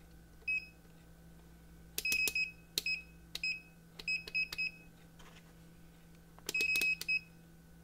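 Southwire digital multimeter giving short high beeps as its controls are clicked. The beeps come in clusters, with one near the start, a run in the middle and a quick group near the end.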